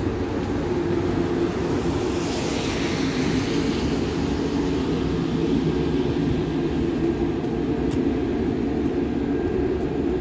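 Czech Railways CityElefant (class 471) double-deck electric train pulling away from the platform: a steady running noise of motors and wheels, with a hiss swelling and fading about two seconds in.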